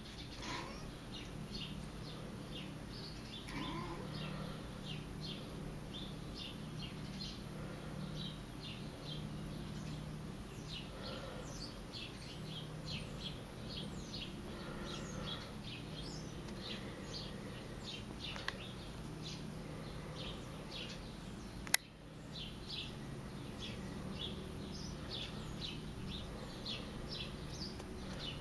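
Small birds chirping busily, many short high chirps a second, over a low steady hum. A single sharp click about 22 seconds in.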